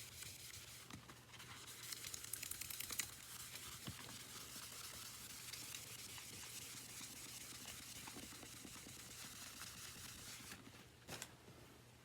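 Faint scrubbing and rubbing on the plastic body of a Miele stick vacuum as surface grime is cleaned off, with a stretch of quick strokes about two seconds in. It stops shortly before the end, followed by a single click.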